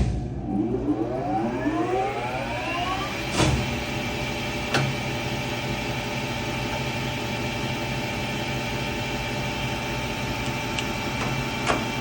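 Blanchard 20-36 rotary surface grinder's grinding-wheel spindle switched on with a clunk. Its whine rises over about three and a half seconds as the wheel comes up to speed, then it runs steadily with a hum. A few sharp clicks sound over the running, about three and a half seconds in, at five seconds, and near the end.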